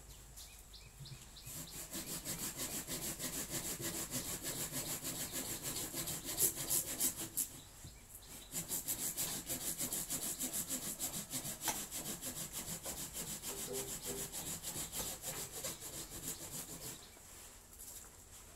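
Small hand saw cutting through a woody branch in quick back-and-forth strokes. The sawing breaks off briefly about eight seconds in, resumes, and stops near the end.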